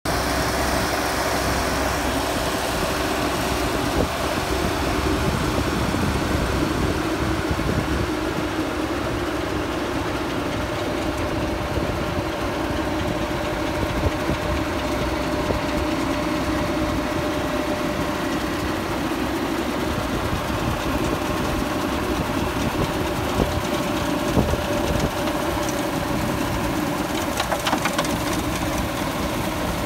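Engine of the farm machine turning a manure compost windrow, running steadily without letting up, with a few short knocks.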